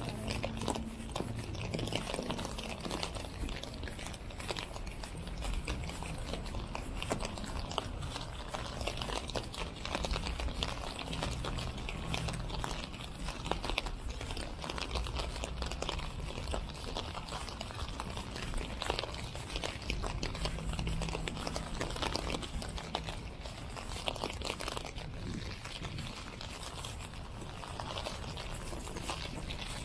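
Steady rain: a dense, even patter of many small drops on wet ground.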